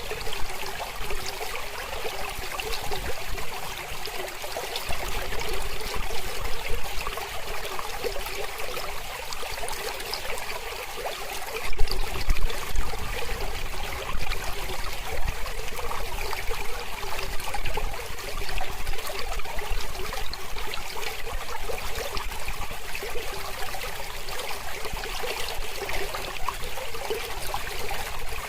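Mountain river flowing: a steady rush of water with a fluctuating splashing texture, and a single brief click about twelve seconds in.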